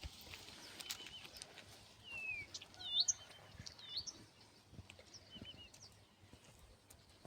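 Small birds chirping: short hooked whistles and brief twittering calls, loudest about three seconds in, thinning out toward the end.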